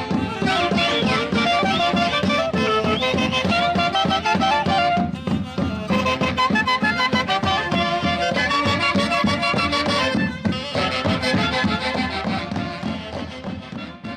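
A marching brass band of saxophones, trumpets, tubas and sousaphones playing a lively tune over a steady pulsing bass beat. The music breaks off briefly twice and grows quieter near the end.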